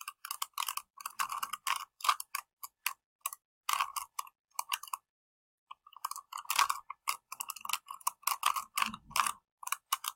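Small plastic Rubik's Cube being twisted by hand: quick irregular clicks and clacks as its layers turn, stopping for about a second midway.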